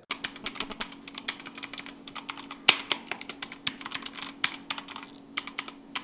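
Typing on a Zebronics Zeb Max Ninja 200 mechanical keyboard with Outemu Red linear switches: a quick, uneven run of key clacks. One louder stroke comes near the middle, and the keystrokes thin out briefly near the end.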